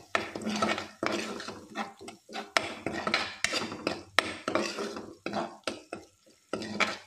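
A steel ladle stirs and scrapes thick masala paste around a nonstick kadhai, making repeated scrapes and metal clinks against the pan, about two strokes a second. The masala is being fried in oil.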